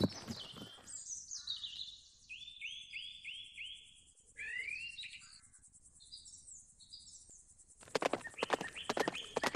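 Songbirds calling and singing, with a run of five quick repeated notes about two seconds in; horse hooves clip-clop on turf briefly at the start and again from near the end.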